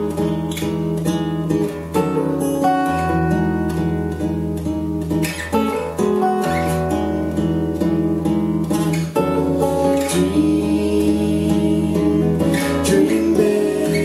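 Two acoustic guitars, a Taylor and a Guild, strummed together, playing chords in a steady rhythm.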